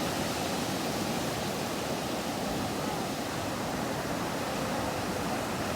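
Sea water washing at the shore: small waves making a steady, even hiss.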